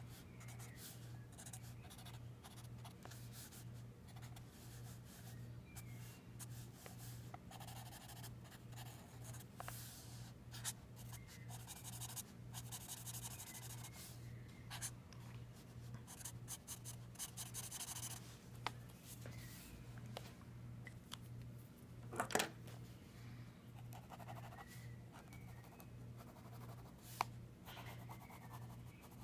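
Felt-tip marker scratching across sketchbook paper in many short inking strokes. A steady low hum runs underneath, and there is one louder knock about two-thirds of the way through.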